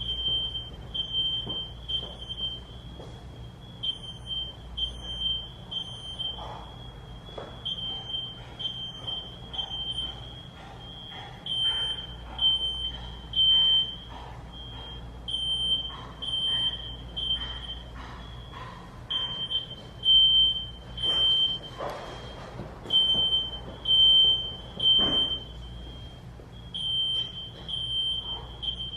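Smoke-alarm sound played back as a prank: a high-pitched electronic tone repeating in short beeps with brief gaps. Scattered knocks and rustles sound underneath.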